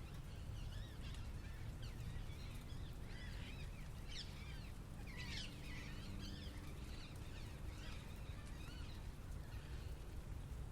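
Small birds chirping in quick curling calls, busiest around the middle, over a steady low city rumble.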